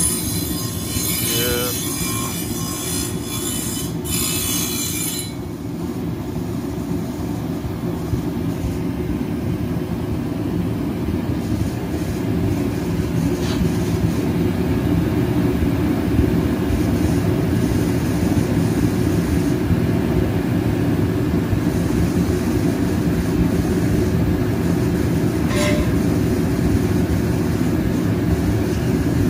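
Straight-piped 392 HEMI V8 idling steadily, a dense low exhaust rumble. A harsh high hiss lies over it for about the first five seconds.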